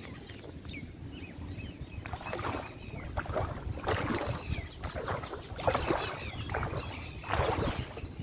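Rushing floodwater and wind buffeting the microphone make a steady low rumble, with short, scattered chirping calls above it.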